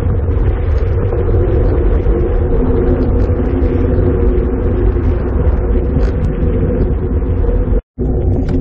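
Steady rumble of wind over the microphone and tyre noise on asphalt from a road bike riding at speed. It cuts out completely for a moment near the end.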